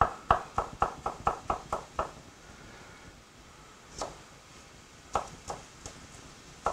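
Small kitchen knife chopping garlic on a wooden cutting board: a quick run of about nine knocks in the first two seconds, then a few scattered knocks later.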